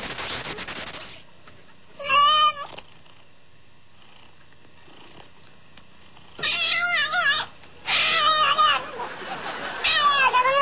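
Domestic cat meowing in long, wavering, almost human-sounding yowls: one about two seconds in, then three more in close succession in the second half. A burst of noise comes in the first second.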